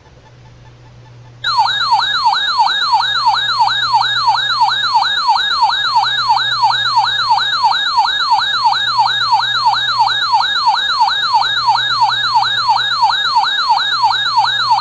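Electronic siren-like alert tone warbling rapidly up and down, about three sweeps a second, starting abruptly and cutting off suddenly. It is the attention signal of an emergency alert for a severe thunderstorm warning.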